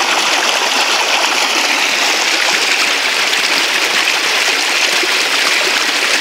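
Steady rush of flowing stream water, even in level throughout.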